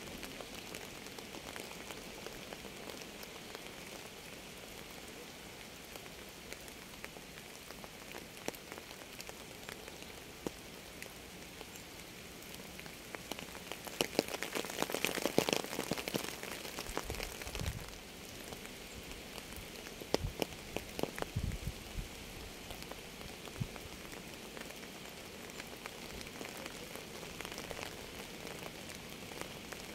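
Rain falling on a surface, a steady hiss dotted with individual drops ticking. About halfway through the drops come thicker and louder for a few seconds, followed by a few heavier, deeper drips.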